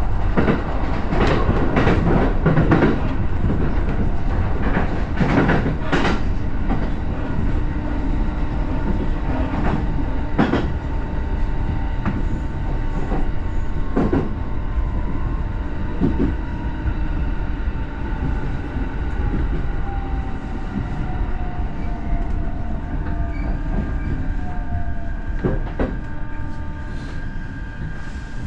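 Commuter train running on the rails with a steady rumble. The wheels click over rail joints, often in the first few seconds and then more sparsely. A whine slowly falls in pitch through the second half.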